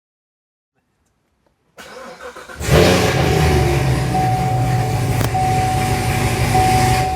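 C7 Corvette V8 starting: a brief crank about two seconds in, then the engine catches with a loud flare and runs at a fast, steady idle, easing off slightly near the end.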